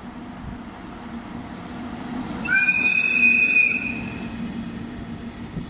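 EF64 1000-series electric locomotive sounding its horn in one loud blast of about a second and a half, starting about two and a half seconds in. Under it runs the steady rumble of the locomotive and its container freight train passing at close range.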